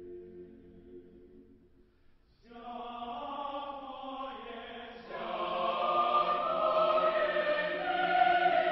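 Choral chant used as background music: a soft held chord fades out, then several voices enter in long held notes about two and a half seconds in and grow louder about halfway through.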